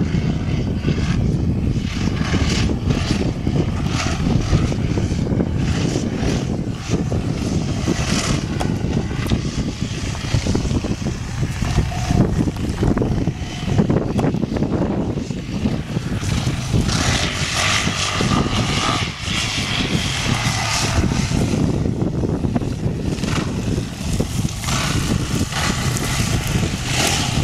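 Yamaha WR426F dirt bike's single-cylinder four-stroke engine running under throttle as it is ridden around a dirt track, the engine note rising and falling as the rider opens and closes the throttle.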